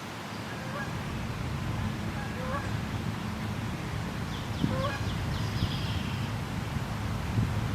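A few short bird calls over a steady outdoor hiss and low hum, with a quick high trill about halfway through.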